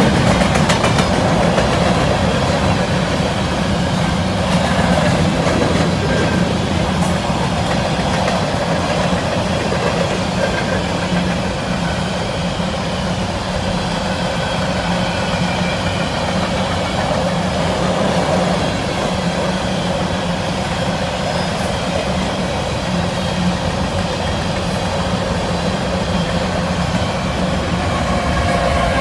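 Freight train's covered hopper cars rolling past: a steady rumble of steel wheels on rail. Near the end the rear distributed-power diesel locomotive draws level and its engine joins in.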